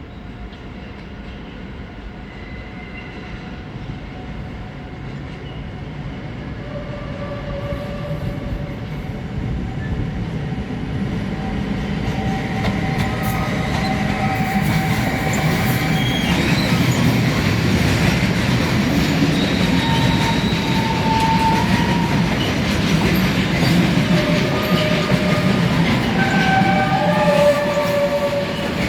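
Freight train rolling through slowly, its wheels squealing against the rails: many separate high squealing tones at different pitches come and go over the steady noise of the wheels. The train grows louder over the first half and then stays loud.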